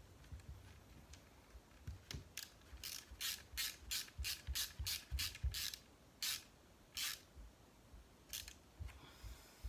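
Small screw being turned into a plastic RC chassis part with a hand driver: a run of short rasping strokes, about three a second, then a few slower ones near the end.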